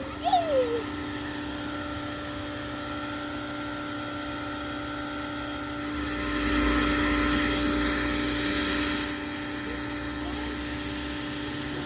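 Greenworks 1700 PSI electric pressure washer running with a steady motor whine while spraying. About six seconds in, the water spray gets louder and hissier for roughly three seconds. A short falling squeal sounds at the very start.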